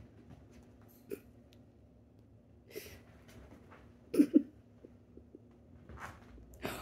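Kittens playing on a mattress and sofa: scattered soft taps and rustles of small paws, with a sharp double sound about four seconds in.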